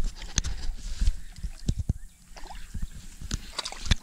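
Irregular knocks, bumps and rubbing on a body-worn camera's microphone as the camera is jostled and swung around.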